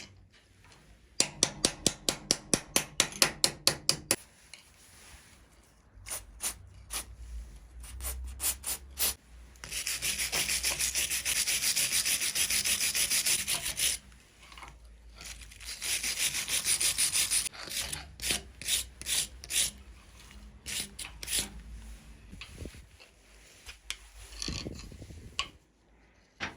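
Abrasive scrubbing on steel pliers to take off rust. First come fast back-and-forth strokes, about six a second. Then there are scattered strokes, and two stretches of steady, hissing scraping of a few seconds each. The strokes return near the end.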